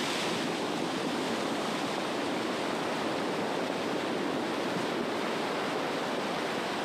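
Heavy storm surf: waves breaking and washing up the shore in a steady rush of noise.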